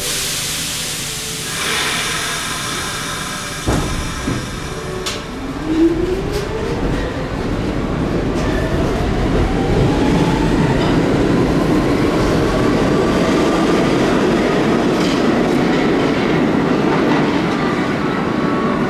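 A New York City subway train pulling out and speeding up: a knock about four seconds in, then the motor whine rising steadily in pitch over the rumble of the wheels.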